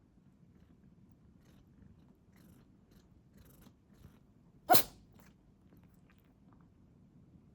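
A domestic cat sneezing once, a single short sharp sneeze about four and a half seconds in.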